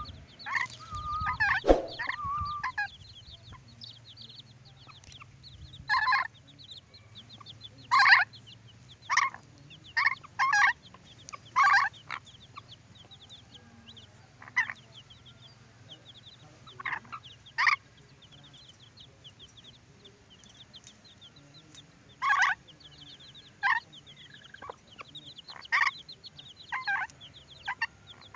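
Ornate lorikeet giving short, harsh screeches, well over a dozen, scattered irregularly with gaps of one to several seconds. A faint, continuous high twittering runs underneath.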